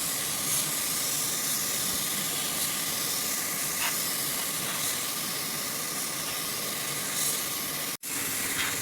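Steady hiss of compressed air spraying, such as a paint spray gun, with a faint steady tone under it. The hiss cuts out for an instant near the end.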